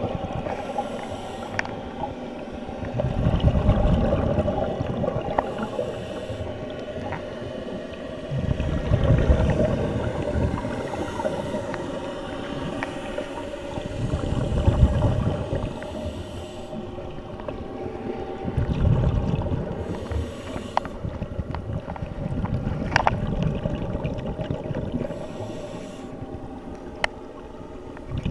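Scuba diver breathing through a regulator underwater: a burst of exhaled bubbles gurgling about every five seconds, with short hissing inhalations between them.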